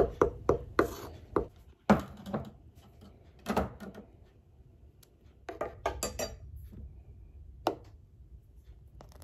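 Wooden spoon stirring a pot of papaya purée and knocking against the side of the pot, about three knocks a second at first. Then come a few separate heavier knocks and a short cluster of clatters.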